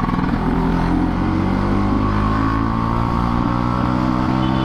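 Two-stroke Vespa scooter engine running at a steady speed under way, with an even, unchanging pitch. The rider suspects a dirty fuel tank is making the fuel feed lag.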